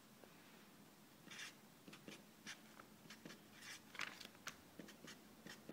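Felt-tip marker writing on a pad of lined paper: faint, short scratchy strokes, starting about a second in and coming in irregular bursts.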